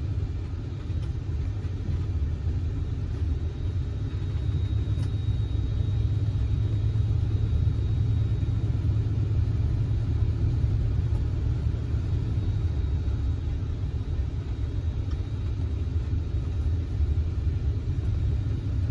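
1971 Oldsmobile Cutlass S's 350 V8 running steadily under way, a deep even rumble with road noise and no marked revving.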